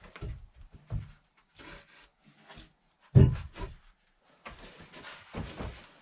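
Woodwork on timber floor pieces: scattered knocks, one loud thump about three seconds in, then a steady rasping, rubbing noise with louder strokes.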